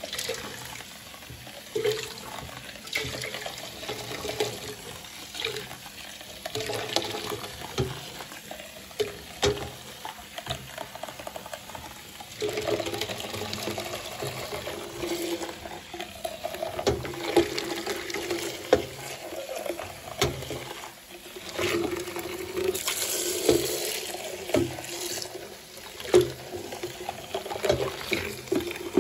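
A tap running into a bowl and down into a bucket of frothy water, splashing as the bowl of rye sourdough starter is rinsed out by hand, with scattered light knocks of the bowl being handled.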